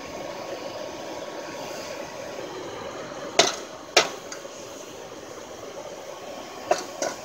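Hair-dryer blower running steadily, forcing air into a charcoal bucket furnace. Over it come sharp metallic clinks, two a little over three seconds in and two more near the end, as a steel skimming rod knocks aluminium slag off into a metal muffin-tin mould.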